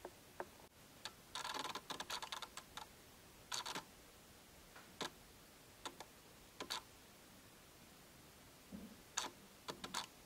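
Faint, irregular small clicks, with short scraping rustles at about a second and a half in and again at about three and a half seconds.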